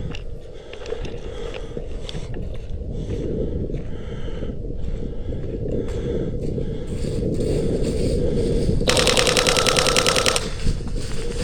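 A burst of full-auto airsoft gunfire, a rapid even string of shots lasting about a second and a half, comes near the end. Before it there is a low rumbling background with scattered light knocks.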